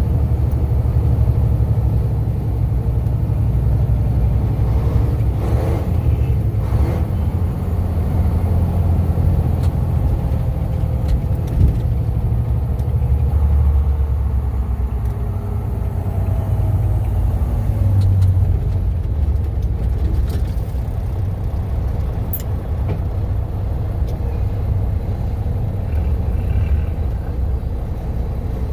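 A heavy truck's engine and road noise heard from inside the cab while driving: a steady low rumble, with one short knock about halfway through.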